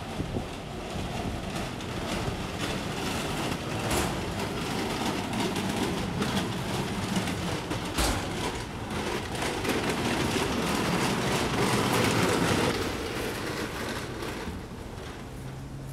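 Rumbling noise of a passing vehicle, building over several seconds to its loudest near the end and then fading, with a couple of sharp knocks along the way.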